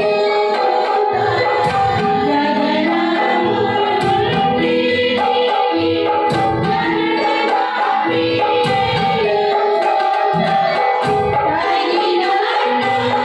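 A group of women singing a song together into microphones, amplified through a sound system, with percussion beating a steady rhythm underneath.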